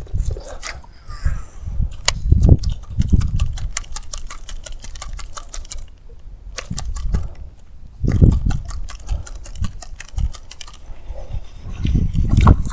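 Fishing reel cranked fast on a lure retrieve: a rapid, even clicking that stops for about a second midway and then resumes, with a few dull low thumps.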